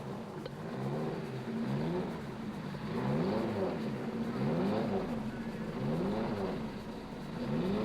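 Racing car engines running hard, their pitch swelling up and dropping away in a string of arcs roughly once a second.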